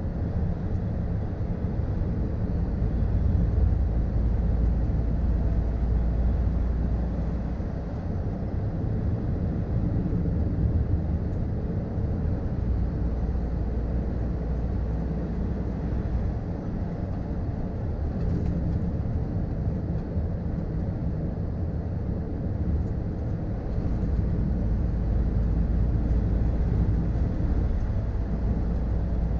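Cab interior of a 2013 Scania R440 tractor unit on the move: its 13-litre straight-six diesel runs with a low drone under road noise. The drone is louder in the first few seconds and again from about five seconds before the end.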